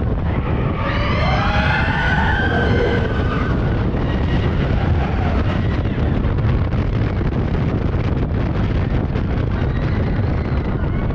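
Expedition Everest roller coaster train running along its track, with a steady rush of wind on the microphone and a low rumble. About a second in, riders scream for a couple of seconds, with fainter yells near the end.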